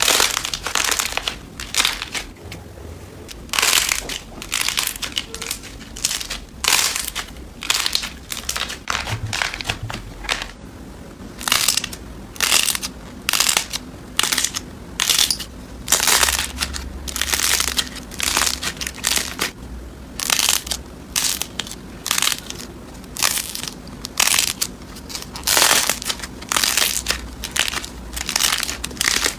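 Slime being squeezed and pressed, giving a long series of short, sharp crackles and crunches at an uneven pace, some in quick runs with brief pauses between.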